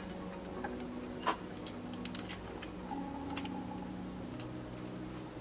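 Scattered light clicks and taps of a knock sensor and its bolt being handled and fitted by hand against the engine block. The sharpest click comes about a second in and a quick little cluster follows around two seconds, over a steady background hum.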